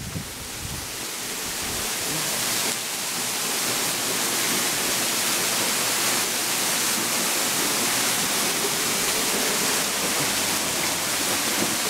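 A waterfall pouring down close at hand, heard from behind its falling curtain of water: a loud, steady rush that swells over the first few seconds.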